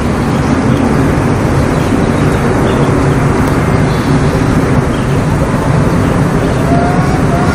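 A loud, steady low rumble, the unexplained 'strange noise' being recorded, with a faint wavering whine rising in near the end.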